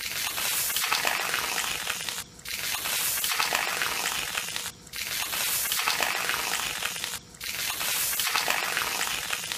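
Hose jet spraying onto a person and splashing on a concrete pavement: a steady hiss and splatter that cuts off briefly three times.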